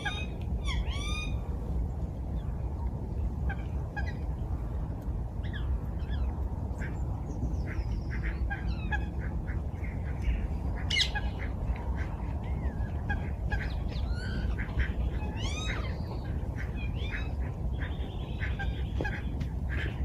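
Ducks calling again and again, short curved calls scattered throughout, over a steady low rushing noise.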